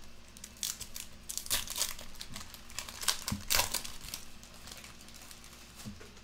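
Foil wrapper of a Topps Finest soccer card pack being torn open and crumpled by hand, crinkling in two short spells.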